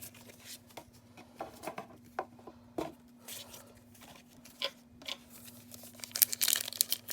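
Trading cards being handled and slid against each other with soft, scattered clicks and rustles, then from about six seconds in a foil booster-pack wrapper crinkling loudly.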